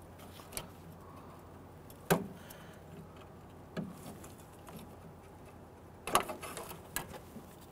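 Scattered sharp clicks and taps as needle-nose pliers work a plastic wiring-harness retainer clip loose: the loudest about two seconds in, a quick cluster about six seconds in, with a faint steady hum beneath.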